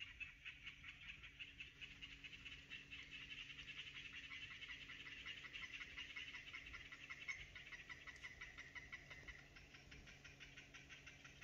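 Faint animal chorus: many calls pulsing fast and steadily in a high chirr, with one longer held note from about seven to nine seconds in.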